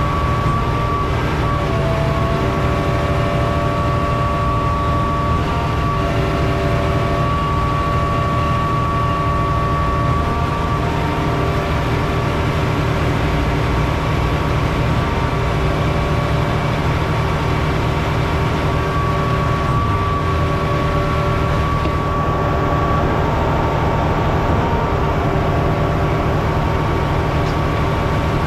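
Concrete pump running steadily under load while pumping concrete, its diesel engine droning with a steady high whine over it.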